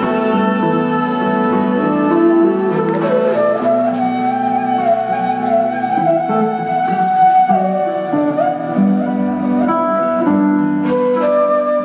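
Live meditative music: a flute playing a slow melody that slides between notes, over sustained guitar chords.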